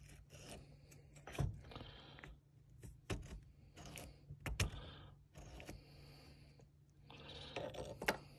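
Small metal parts of a 1965 Volvo 122S headlight dipper switch being handled and fitted back together: a handful of sharp clicks, the loudest about halfway through, with light scraping between.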